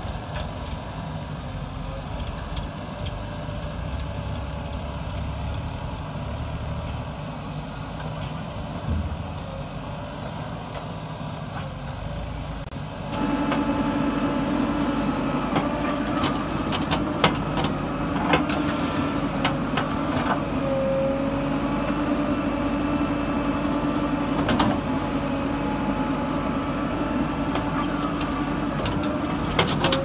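A JCB 3DX backhoe loader's diesel engine runs steadily while it works. About 13 seconds in, the sound jumps to a louder, steady drone. Scattered knocks and thuds follow as clods of mud drop from the bucket into the tractor trolley.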